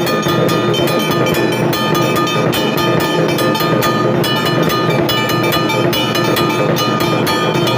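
Hindu temple bells ringing continuously: rapid, overlapping strikes whose ringing tones hang on over one another.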